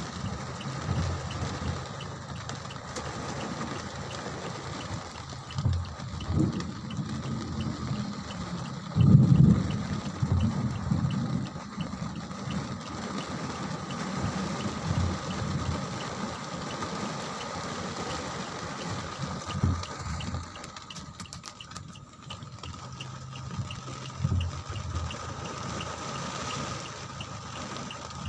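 Rain pouring down with water gushing and running, a steady wash of noise. Low rumbles come and go through it, loudest about nine seconds in.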